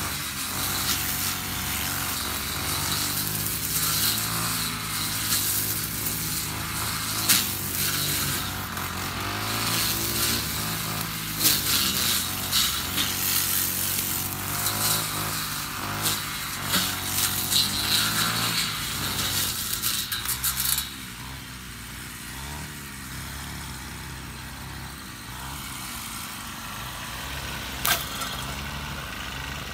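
Honda UMK450T brush cutter with its four-stroke GX50 engine running hard while its two-tooth blade cuts tall grass, with many sharp clicks and ticks of stalks and debris striking the blade. About two-thirds of the way through the cutting stops and the engine drops to a lower, steadier idle, with one sharp click near the end.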